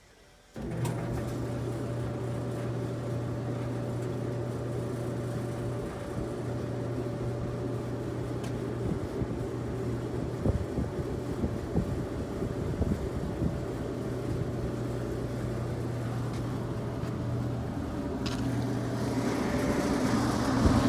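Samsung electric dryer starting about half a second in and then running steadily: the drive motor humming and the drum turning, with occasional knocks. The dryer now starts and runs after its no-start repair.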